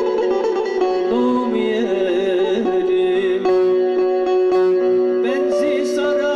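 A man sings a Turkish folk song, accompanying himself on a bağlama (long-necked saz), amplified through a PA. The sung line wavers over a steady run of plucked string notes.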